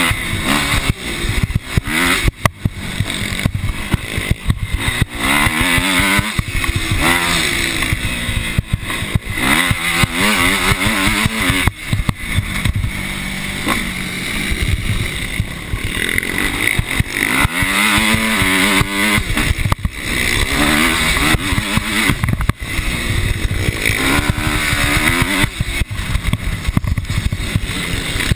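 Motocross bike engine revving up and falling back again and again as the rider accelerates out of corners and shuts off into them, recorded on board the bike, with sharp knocks and rattles from the bumpy dirt track.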